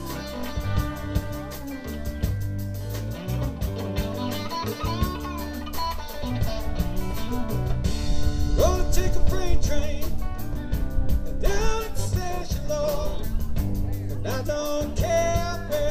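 Live rock band playing electric guitars and drums, with a melody of bending notes that comes in louder about halfway through.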